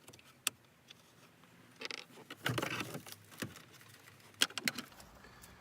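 Hand-working noise from pulling out a car stereo: scattered sharp clicks and knocks of plastic trim and wiring connectors, with a louder rustling scrape about two to three seconds in.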